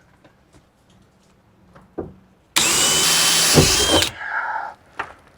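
Power drill boring a hole through a plate: one burst of about a second and a half, starting about two and a half seconds in, with a steady high whine from the motor.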